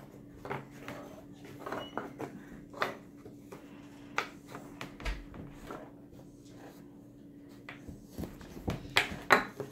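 Wooden puzzle pieces knocking and clacking against a wooden puzzle board and tabletop as they are handled and fitted in. Scattered irregular taps, louder knocks near the end.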